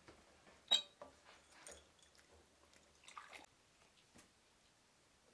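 Glassware and cutlery clinking and knocking on a metal serving tray. The loudest is a single sharp, ringing clink just under a second in, with a few softer knocks and faint liquid sounds after it.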